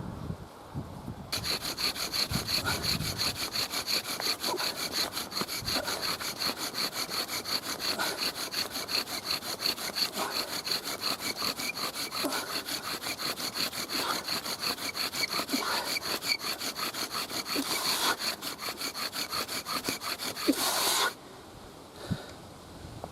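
Yucca bow drill in use: rapid, rhythmic back-and-forth strokes of the bow as the spindle grinds against the wooden hearth board to make a coal. It stops suddenly near the end.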